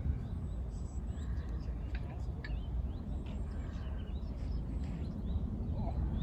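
Small birds chirping and singing in short, quick calls, some rising in pitch, over a steady low rumble.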